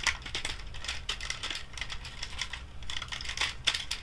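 Plastic Power Rangers in Space Deluxe Astro Megazord toy being handled and its leg parts folded and shifted: a run of irregular small plastic clicks and clacks, with the sharpest click a little before the end.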